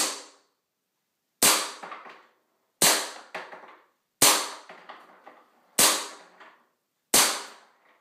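Tokyo Marui M1911 Desert Warrior gas blowback airsoft pistol firing single shots, six sharp cracks about one and a half seconds apart, each with a brief ring-out.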